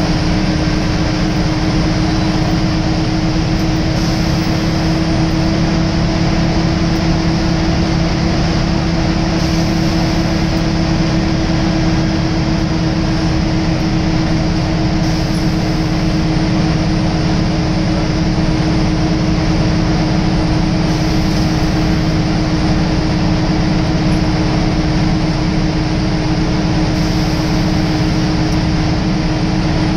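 Scania L94UB single-deck bus heard from inside the passenger saloon while cruising at a steady speed: a steady diesel engine drone, with one unchanging pitch, over road and tyre noise.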